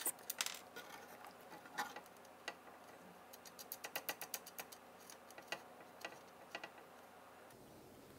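Faint, scattered small metal clicks and ticks of washers and bolts being handled and pushed into a heated bed's mounting holes, with a quick run of ticks about halfway through.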